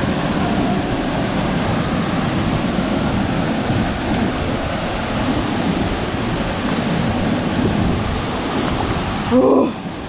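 Steady rush of a waterfall pouring into a rock plunge pool, heard from just above the water, with water rippling and sloshing around a person wading in. Near the end a short, loud, muffled yelp.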